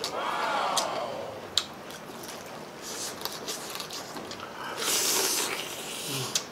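Close-up eating sounds from fried chicken drumsticks coated in cheese sauce: wet chewing and biting with scattered sharp mouth clicks. A brief hummed 'mmm' with falling pitch comes right at the start, and a louder, hissy bite comes about five seconds in.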